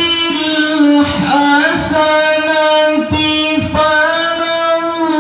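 A qori's high male voice reciting the Quran in melodic tilawah style, amplified through a hand-held microphone: long held notes with ornamental turns and slow glides in pitch.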